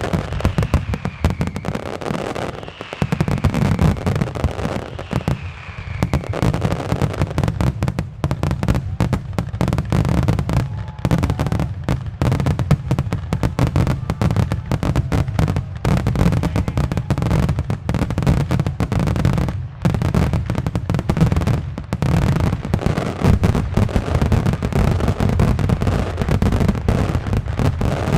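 Fireworks finale: a dense, continuous barrage of aerial shells and salutes bursting in rapid succession. In the first six seconds a few falling whistles sound over the bursts.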